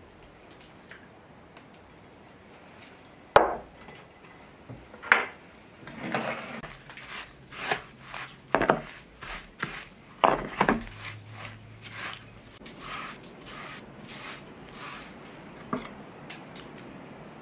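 A metal spoon stirring and scraping a crumbly cornmeal mixture in a wooden dough bowl: a few sharp knocks, then a run of short scraping strokes that fade off near the end.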